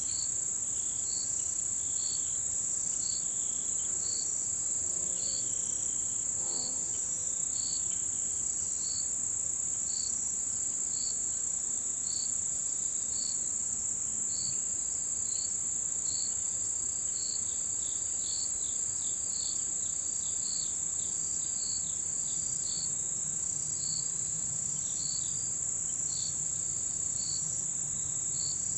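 Autumn insects chorusing, led by a continuous high-pitched cricket trill. Over it a second, lower chirp repeats about once a second, and from about halfway through a cluster of quick falling notes joins in.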